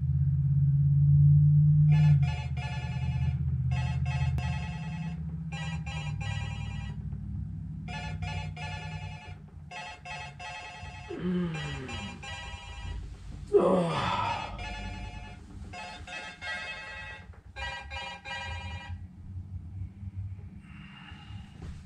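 Smartphone ringtone ringing in repeated bursts of about a second each, going on and off about nine times, with a low rumble during the first two seconds and a couple of short groan-like voice sounds from the waking sleeper partway through.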